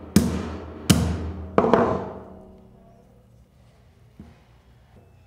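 A shop hammer strikes a bearing driver three times, about every three-quarters of a second, each metal-on-metal strike ringing and dying away, as it knocks the inboard bearing out of a Crank Brothers pedal body. After that there is quiet handling with one faint click.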